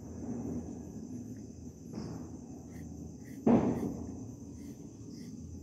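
Pencil strokes on paper as a leaf and its veins are drawn, over a steady high trill of crickets. One louder, sudden thump about three and a half seconds in.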